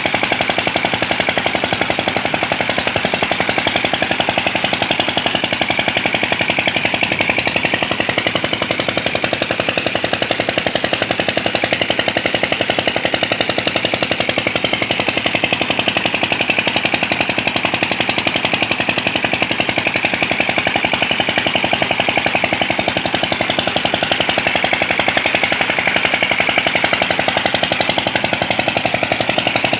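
Old stationary diesel engine running a tubewell pump, with a steady, fast, even knocking beat.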